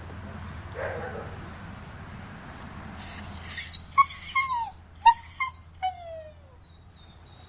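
A dog whining and yelping: a run of short, high cries that fall in pitch, starting about three seconds in and lasting about three seconds.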